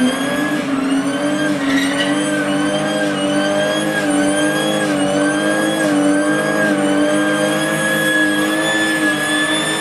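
Car engine held at high, nearly steady revs for the whole stretch, with a clear high-pitched whine riding on it that wavers slightly with the revs.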